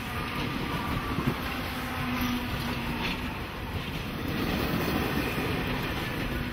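TBA commuter train passing close by: a steady rumble of its wheels on the rails as the carriages roll past.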